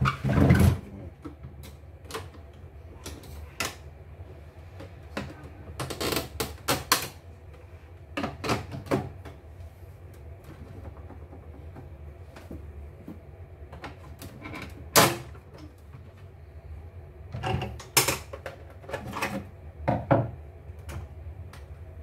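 Plastic outer cover of an E900 embroidery machine being handled and pulled loose from its frame: scattered clicks, knocks and rattles, loudest about half a second in and again around fifteen and eighteen seconds in.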